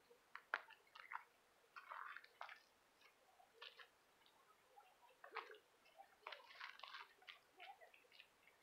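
Near silence with faint, irregular crackles and rustles.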